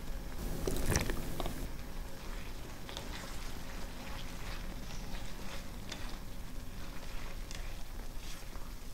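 Kitchen cooking sounds: a knock about a second in, then many small scattered crackles and taps over a faint hiss.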